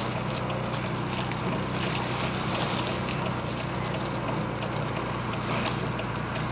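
Steady drone of a small motorboat engine over a hiss of wind and water, with a few faint ticks.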